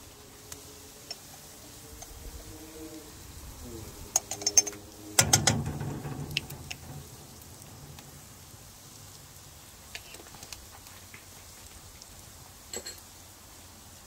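Onions frying quietly in a pan over charcoal while seasoning goes in: about four seconds in, a quick run of sharp clicks, then a louder clatter lasting a second or so, with a few faint clicks later.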